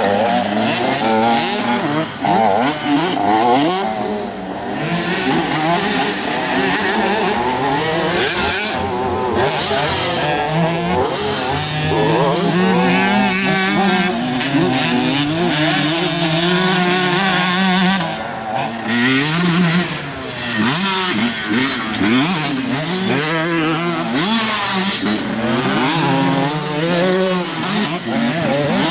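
Motocross dirt bike engines revving hard, the pitch climbing and dropping again and again as the riders open and close the throttle.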